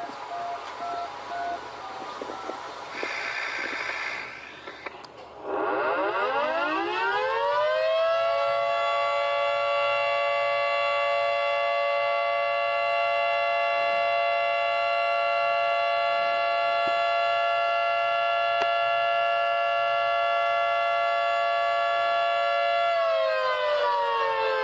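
Outdoor warning siren sound winding up from a low pitch to a steady chord of several tones, holding for about fifteen seconds, then starting to wind down near the end. It is preceded by a few short beeps and a brief hiss.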